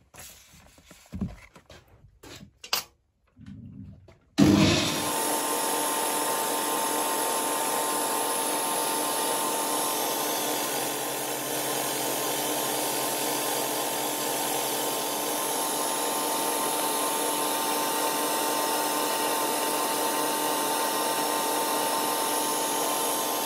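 Boxford BUD metal lathe switched on about four seconds in after a few light knocks, then running steadily while its tool turns a taper on brass stock: a constant machine sound with a steady whine.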